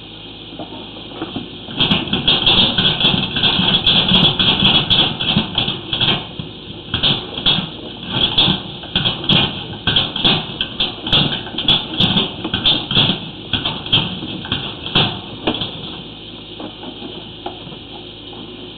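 Sewer inspection camera and its push cable being shoved along a 4-inch cast iron drain line, rattling and scraping irregularly. It starts about two seconds in and stops about three seconds before the end, over a steady background hiss.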